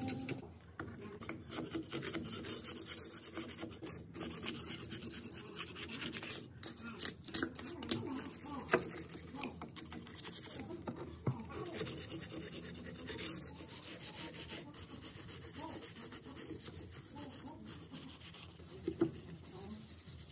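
A screwdriver tip scraping rust and caked grime off a rusty metal gearbox housing, in irregular scratchy strokes with a few sharp clicks of metal on metal.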